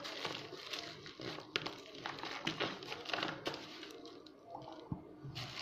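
Faint rustling and crinkling of a plastic eBay shipping package being handled and worked open by hand, with scattered small clicks.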